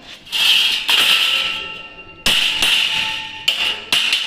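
Hammer blows on a sheet-metal cable tray as it is bent to a 90-degree angle, about five sharp strikes, each leaving the metal ringing.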